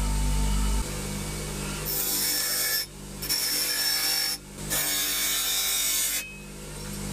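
Rusty knife blade being worked with an abrasive tool: three long scraping strokes of a second or so each, with short breaks between them, over a steady motor hum.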